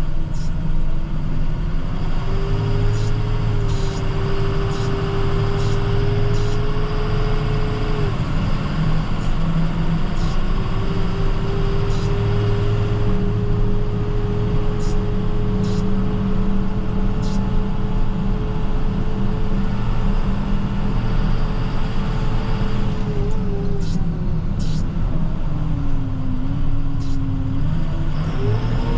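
Chevrolet Silverado 6500 plow truck heard from the cab while driving, its engine running steadily. A whine over the engine drops away twice and comes back up, with faint clicks now and then.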